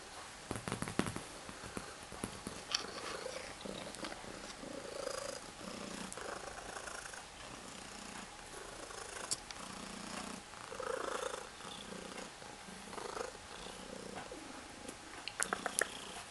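Siberian cat purring in soft waves about once a second, with a few sharp clicks near the start and end.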